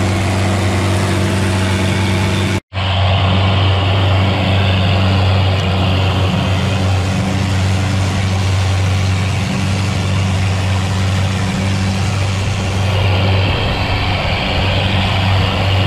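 Longtail boat's engine running steadily at cruising speed, with water rushing and splashing along the hull. The sound drops out for an instant about three seconds in, then the engine and a louder hiss of spray carry on.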